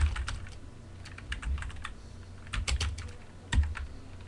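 Computer keyboard being typed on in about four short bursts of a few keystrokes each, with a dull thump under the harder strokes.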